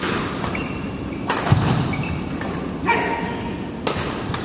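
Badminton rally in a large echoing hall: sharp racket-on-shuttlecock hits about every second or so, three of them, with short shoe squeaks on the court mat and a heavier footfall thud about a second and a half in.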